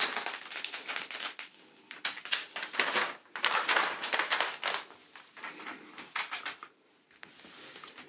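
Thick clear plastic cover film on a diamond painting canvas crinkling and rustling as hands press and smooth its wrinkles flat, in uneven crackly swishes that die down near the end.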